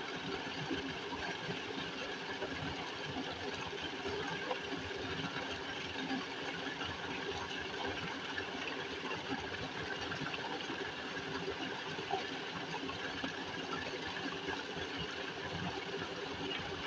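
An engine running steadily, a constant drone with a few steady tones in it.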